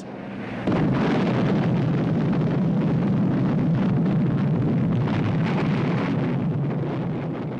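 Aircraft engines running with a steady, loud rumble that starts suddenly under a second in.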